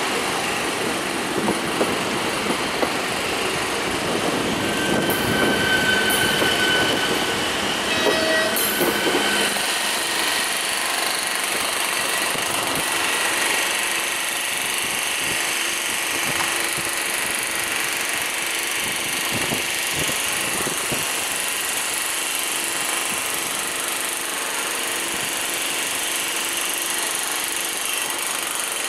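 A České dráhy InterPanter electric multiple unit pulling out, its wheels rolling over the station points with brief squeals and a quick run of clicks about eight seconds in. After that comes a steadier electric whine and hum from other Panter electric units running slowly in the station.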